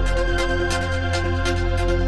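Background music: electronic track with a steady beat, sustained synth notes and heavy bass.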